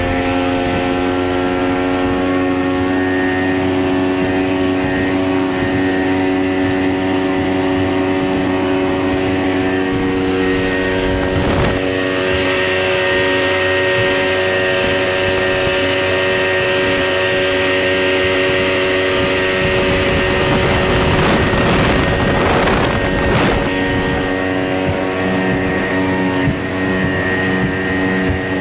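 Twin outboard motors on a rigid inflatable boat running steadily at planing speed, around 33 mph, a constant engine drone. About two-thirds of the way through, a louder rush of water and wind rises over it for a few seconds.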